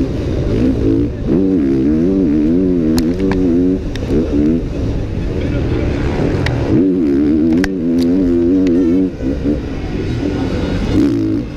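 KTM 450 SX-F four-stroke motocross bike engine revving hard, rising and falling in pitch again and again as it is ridden through a race. A few sharp knocks are heard along the way.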